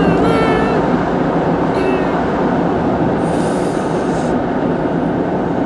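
Steady engine and tyre noise heard inside the cab of a moving vehicle, an even rumble with no change in speed.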